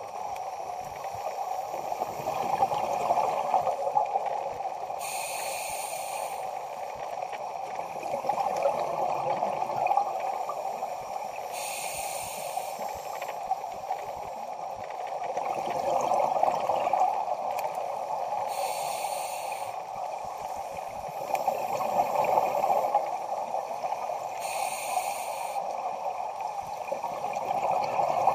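Scuba regulator breathing underwater: a short hiss with each inhale every few seconds, and gurgling bursts of exhaled bubbles between, over a steady watery rush.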